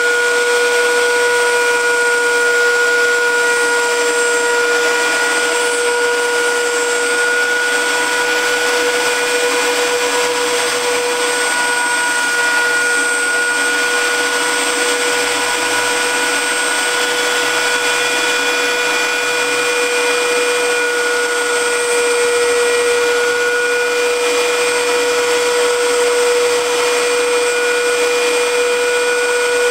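Router spindle of a homemade CNC router running with a steady high whine as its bit carves lettering into a wooden sign.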